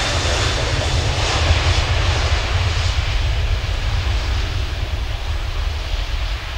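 Boeing 737-900ER's CFM56-7B jet engines at takeoff power during the takeoff roll: a loud, steady roar with a deep rumble. The roar slowly fades as the aircraft moves away down the runway.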